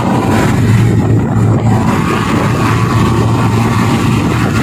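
Daihatsu Gran Max pickup driving at high speed, heard from inside the cab: a steady engine drone with road and wind noise.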